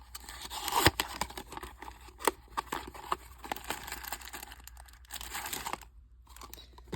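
Blind-box packaging being torn open by hand: irregular crinkling and tearing of the wrapper with sharp cracks, the loudest about a second in, and a brief pause near the end.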